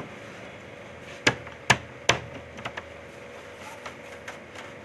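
Sharp knocks on a bakery's metal worktable as dough is worked: three loud ones about half a second apart, then several lighter taps.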